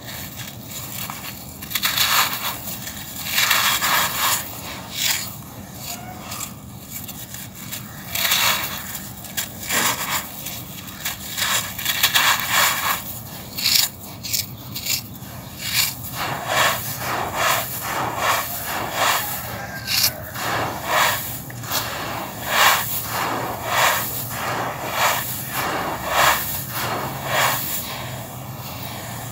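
Hands crushing a lump of packed dry sand and raking fingers through loose dry sand on a floor, making gritty crunching and scraping strokes. From about halfway the strokes come quicker and more evenly, roughly one a second or a little faster.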